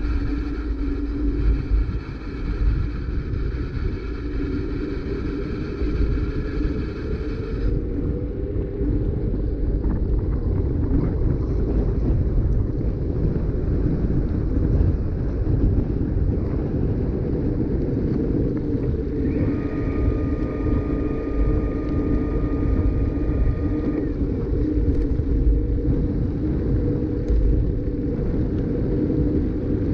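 Bicycle tyres rumbling on fresh asphalt while riding, with wind rushing on the microphone. A faint, steady high whine runs for the first eight seconds or so and comes back for a few seconds about twenty seconds in.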